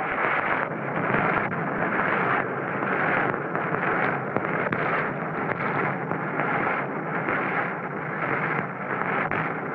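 Miniature steam locomotive chuffing at a steady pace, a noisy puff a little more than once a second.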